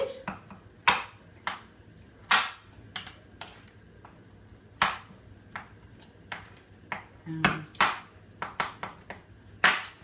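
Wooden rolling pin knocking on the back of a knife blade to crack a slab of hard, set treacle toffee into squares on a wooden chopping board: a dozen or so sharp knocks at uneven intervals, some with a short ring.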